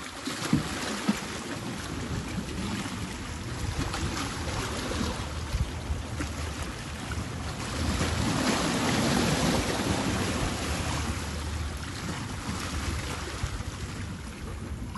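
Ocean waves surging and splashing against jetty rocks, with wind buffeting the microphone. A bigger wave breaks and sprays up about eight seconds in, the loudest moment.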